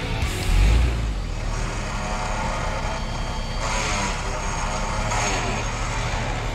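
Jeep engine running at low revs as the Jeep crawls over rocky ground, with a brief louder surge of low rumble about half a second in. Two short hissing bursts come near the middle.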